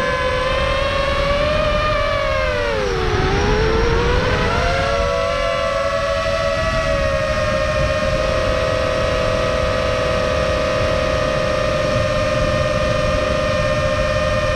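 FPV quadcopter's electric motors and propellers whining as several close tones heard from the onboard camera, over a low rushing noise. About three seconds in the pitch drops as the throttle is eased off, then rises again about a second later and holds steady.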